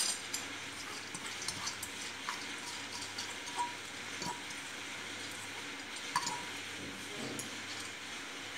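Washed red lentils being tipped and scraped from a steel bowl into a stainless steel pan, with a few light metallic clinks of bowl against pan over a faint steady hiss.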